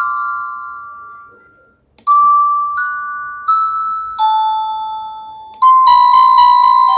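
Cacazi HYA10 wireless doorbell receiver playing its electronic chime tunes. A tune's last note dies away, then about two seconds in a four-note chime rings, evenly spaced, with the last note held; near the end another, quicker tune begins.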